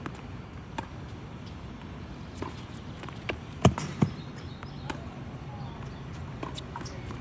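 Tennis balls being struck: two sharp pops less than half a second apart about halfway through, with fainter ticks before and after, over a steady low background rumble.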